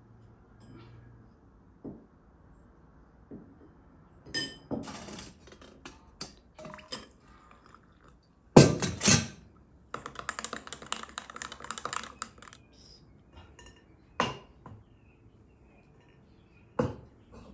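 Kitchen handling sounds of glass bowls, a glass and utensils: scattered knocks and clinks, a louder clatter about halfway through, then a couple of seconds of rapid clinking like a spoon stirred fast in a glass, and a few single taps near the end as flour is worked through a metal sieve.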